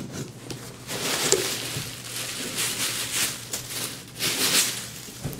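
Packing tape on a cardboard shipping box being slit with a knife and torn away, a series of short scraping, tearing strokes.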